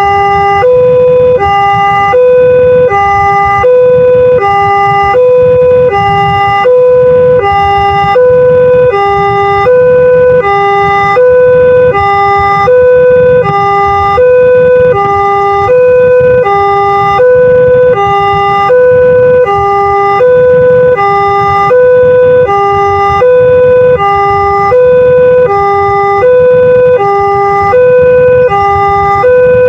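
Railway level-crossing warning siren of the Multec type, sounding a fast, even two-tone alternation between a higher and a lower note, switching about every two-thirds of a second.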